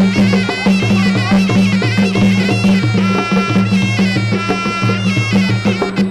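Traditional Khmer boxing ringside music: a reedy, bagpipe-like sralai oboe playing a wavering, ornamented melody over steady drumming.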